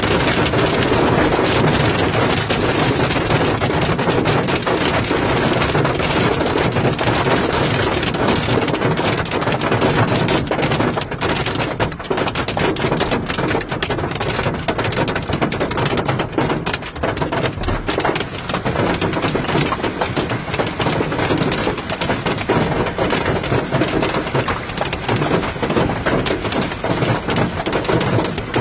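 Hail and rain falling hard: a dense, steady patter of many small impacts on a hard surface.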